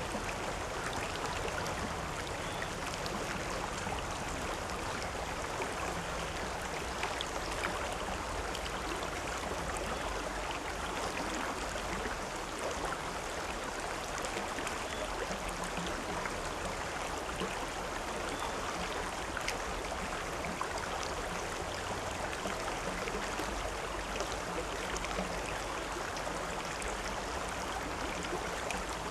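River water flowing steadily, a continuous rushing with small splashes and gurgles throughout.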